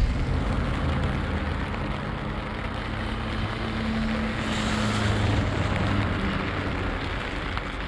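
Steady rain falling outdoors, with a low steady hum underneath.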